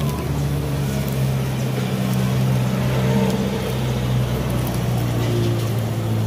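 An engine idling with a steady low hum.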